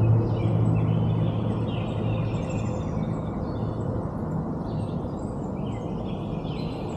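Outdoor river ambience: a steady background rush with small birds chirping repeatedly. A low hum is strongest at the start and fades over the first few seconds.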